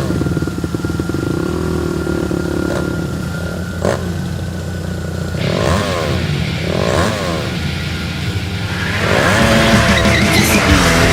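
A vehicle engine running steadily and revved up and back down a few times. About nine seconds in, a louder, busier mix of noise and music comes in.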